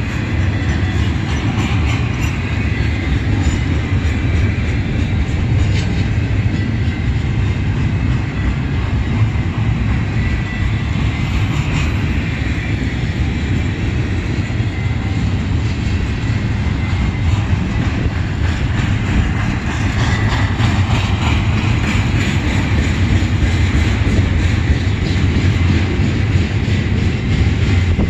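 Double-stack intermodal train's well cars rolling past close by: a steady rumble of steel wheels on the rails with a continuous clatter of clicks.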